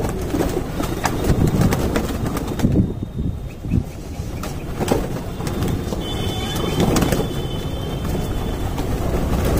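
A large flock of domestic pigeons feeding on scattered grain: cooing, with scattered wing flaps and short taps as they peck.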